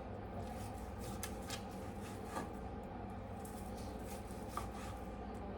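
Baked chicken breast being cut up by hand for chicken salad: a few scattered light taps and clicks of the cutting over a steady low hum.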